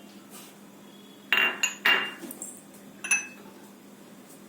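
A spoon clinking against a dish as ingredients are added: a quick cluster of three ringing clinks about a second and a half in, and one more a little after three seconds.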